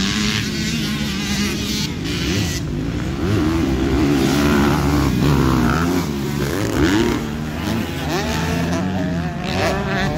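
Motocross bikes' engines revving up and easing off as they race round a dirt track, with several engines overlapping and their pitch climbing and dropping over and over.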